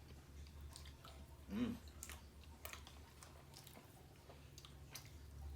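A person chewing a mouthful of chocolate peanut butter cheesecake, with soft scattered mouth clicks and a brief hummed voice sound about one and a half seconds in.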